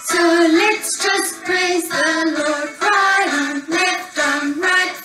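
A children's song: a high voice singing a melody in short held notes over musical accompaniment.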